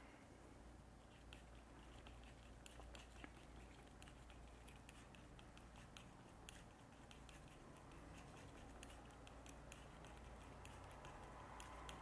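Near silence, with faint, scattered ticks of a flat brush working oil paint on a glass palette.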